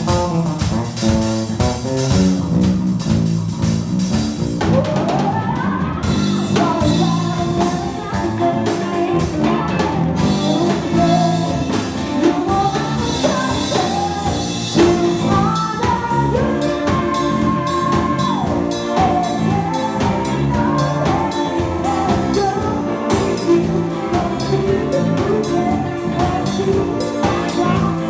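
A live band playing a song: a singer over a drum kit and other instruments, with a steady drum beat.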